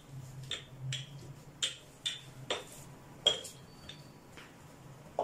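Wooden rolling pin and hands working a stuffed paratha on a plastic tray: about eight irregular clicks and knocks as the pin is rolled and set down and the dough is turned, over a steady low hum.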